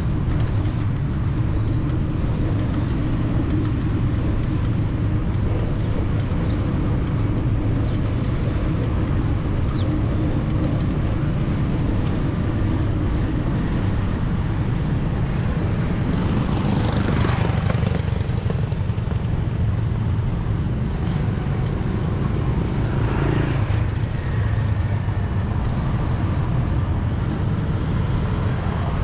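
Steady city road traffic heard from a bicycle: a constant rumble of passing engines and tyres. A vehicle passes close, rising and then falling away, about seventeen seconds in, and another about twenty-three seconds in.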